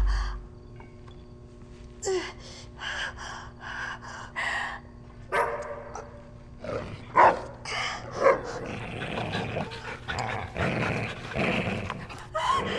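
A dog barking repeatedly in quick runs of short barks, loud for the first eight seconds or so, then fainter.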